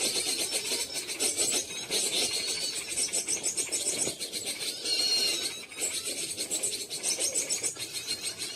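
Wild birds calling in the open over a dense, fast-pulsing high rasping chorus, with short clear whistled notes about two seconds and five seconds in.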